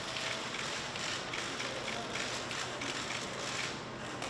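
Shutters of many press cameras firing in rapid, overlapping bursts of clicks.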